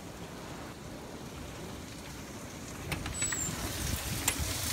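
Steady rain falling, an even hiss that grows louder about three seconds in, with a few sharp taps.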